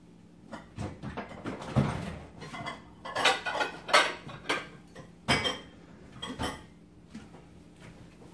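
Dishes clattering and clinking as a bigger mixing bowl is taken out from among other bowls: a run of irregular knocks and clinks, loudest in the middle.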